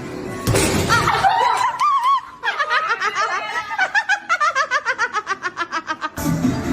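High, squeaky laughter: a wavering call, then a fast run of short laugh notes sliding down in pitch, which cuts off abruptly near the end.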